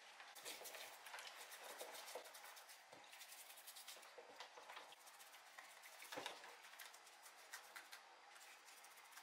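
Faint brush scrubbing of old Homelite chainsaw parts in a tub of soapy water: bristles scratching over plastic and metal, with water sloshing and dripping and a couple of louder clicks.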